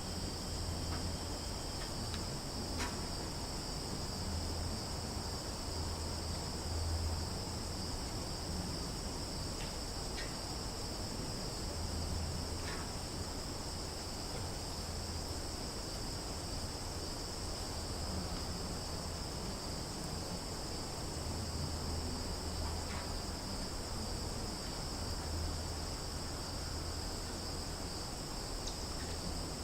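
Summer forest ambience: a steady, high-pitched insect chorus that holds without a break, with a few brief faint chirps scattered through it and a low rumble that swells and fades.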